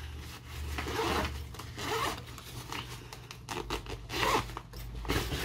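Zipper on a thin foldable backpack being pulled along in several short runs.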